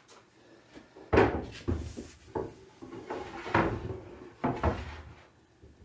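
A run of about half a dozen wooden knocks and clunks with some scraping between them, the loudest about a second in: sheets of 3/4-inch Baltic birch plywood being shifted and set down on the filing cabinets.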